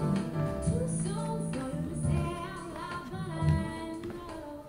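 Music: a woman singing over plucked guitar.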